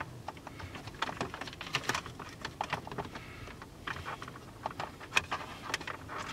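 Scattered light clicks and scrapes of fingers and an audio cable brushing against the plastic dashboard trim of a Volkswagen Jetta, as the cable is fished down behind the panel by feel.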